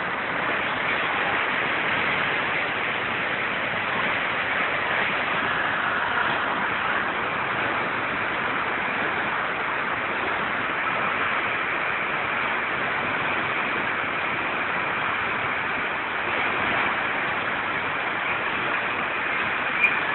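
Ain al-Fijeh spring water rushing in full flow close to the microphone, a steady, even rush with a short knock near the end.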